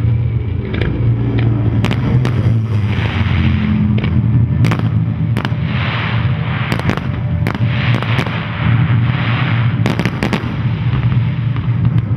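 Fireworks going off: about a dozen sharp bangs at irregular intervals, some in quick pairs, with hissing crackle between them, over a steady low hum.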